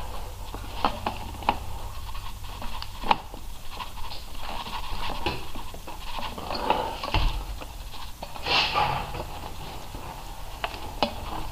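Handling noise from rubber gas-injector hoses being routed and worked onto their fittings on the engine's intake manifold: scattered light clicks, knocks and rustles over a low steady hum.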